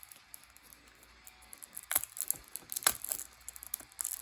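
Plastic-wrapped toy car box being handled: faint crackles and ticks of the wrapping, with two sharper clicks about two and three seconds in.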